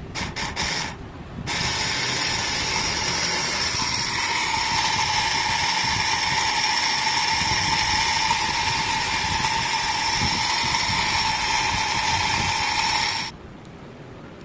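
3D-printed water pump driven by a 12 V 775 DC motor: switched on in a few short bursts, then running steadily with a high whine over a hiss, cutting off suddenly near the end.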